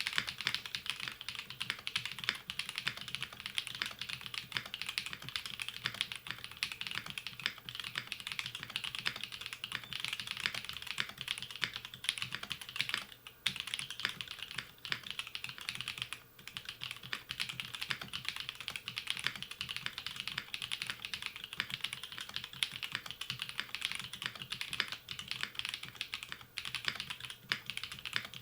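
Fast, continuous typing on a Blade60 custom mechanical keyboard with Technoviolets linear switches, a polycarbonate plate and GMK keycaps: a dense stream of key clacks, pausing briefly twice about halfway through.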